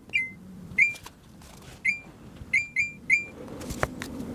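Six short, high electronic beeps at irregular intervals: an air conditioner acknowledging signals from its remote control, which is working again with fresh batteries. A single sharp click comes near the end.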